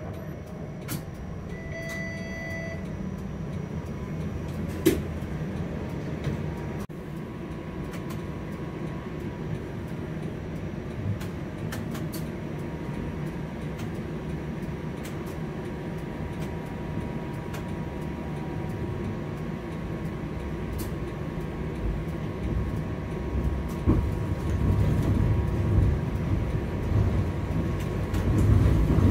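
TTC streetcar running along the line, heard from on board: a steady low rumble of wheels and running gear with scattered clicks and knocks. There is a short beep about two seconds in and a faint steady whine from about eight seconds on, and the rumble grows louder near the end.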